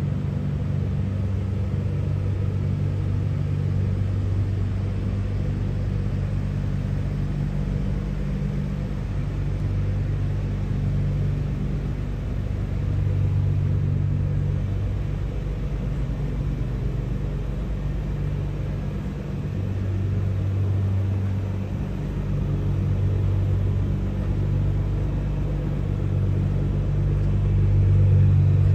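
2009 Nissan GT-R's twin-turbo 3.8-litre V6, with full bolt-on modifications, idling steadily with a low exhaust rumble. It gets louder near the end as the quad tailpipes come close.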